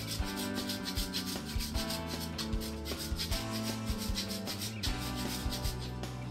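A wedge of fresh Parmesan cheese being grated on a hand-held rasp grater: quick, repeated scraping strokes.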